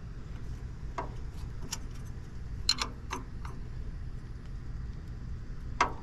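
Sharp metallic clicks and clinks of a wrench on the sawmill guide arm's adjustment bolts as they are snugged up. There are several clicks at irregular spacing, the loudest near the middle and just before the end, over a steady low rumble.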